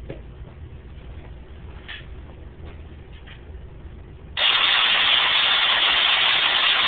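Homemade Tesla coil switched on about four seconds in: a sudden, loud, steady hiss of electrical discharge, with no top load fitted. Before it, only a few faint clicks.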